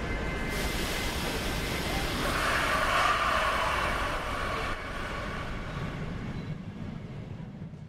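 Steady rumble of passing vehicles on a city street. It swells about three seconds in, then fades out near the end.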